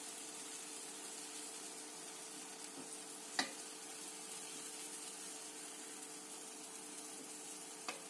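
Cold sugar syrup sizzling as it is ladled over hot, freshly baked semolina-and-nut cookies on a very hot baking tray, a steady hiss. A single sharp knock about three and a half seconds in.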